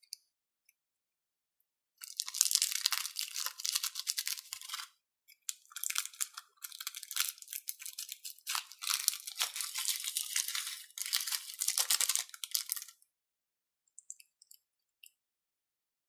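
Small plastic bag of sequins crinkling and rustling in the hands in three long stretches, while it is cut open with scissors and the sequins are emptied into a glass bowl.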